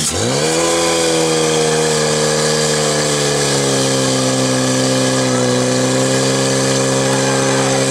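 Portable fire pump's engine running at high revs, pumping water out through the hoses to the nozzles. Its pitch climbs back from a brief dip at the start, then holds steady.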